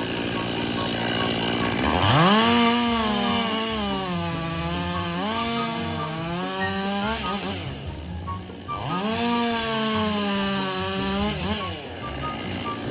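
Chainsaw run at high revs in two long bursts, the first starting about two seconds in and the second about nine seconds in, its pitch sagging and recovering as the chain bites into the wood. The saw is cutting dead wood out of an oak.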